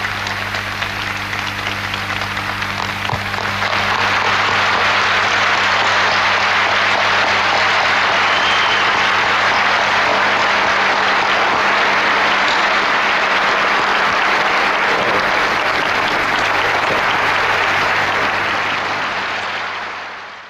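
Audience applauding at length, swelling louder a few seconds in and fading out near the end, over a steady low electrical hum.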